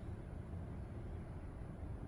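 Steady low rumble with a faint hiss of background noise, with no distinct sounds from the work on the window film.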